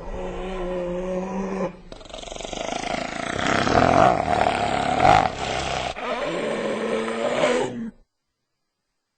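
Spotted hyena calling: a steady low drawn-out call, then a louder, harsher call loudest around four to five seconds in, then another drawn-out call that ends about eight seconds in.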